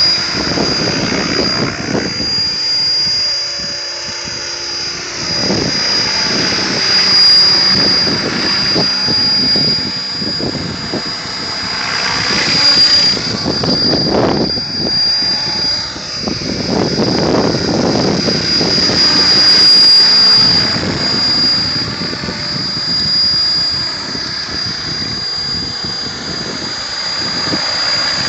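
Mikado Logo 600 electric RC helicopter in flight: a steady high-pitched whine over rotor noise that swells and fades several times as it passes close and moves away.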